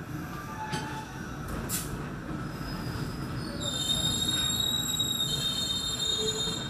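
Steel wheels of the departing KA Lokal Cibatu passenger train squealing against the rails over the low rumble of the moving train. The high-pitched squeal sets in about two and a half seconds in, grows loud, and eases off near the end.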